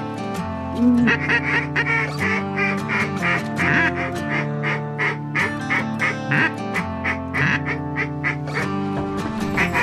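Ducks quacking over background music, in repeated quacks about two or three a second.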